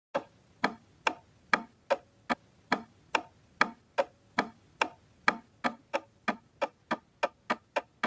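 Clock-like ticking sound effect, about two ticks a second at first, speeding up gradually toward the end.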